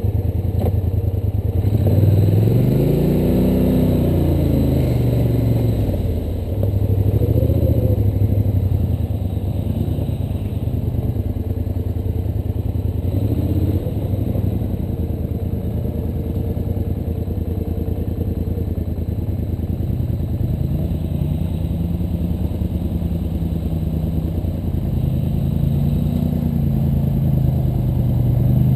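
ATV engine running, its pitch rising and falling with the throttle several times in the first half, then steadier before climbing again near the end.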